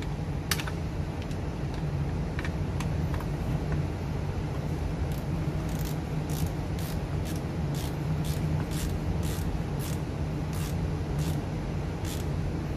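A run of short, light clicks, about two a second, starting about five seconds in and stopping near the end, over a steady low hum.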